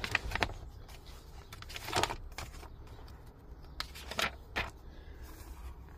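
Sheets of a paper manual rustling as they are handled and turned: a few short crinkles just after the start, around two seconds in and around four seconds in.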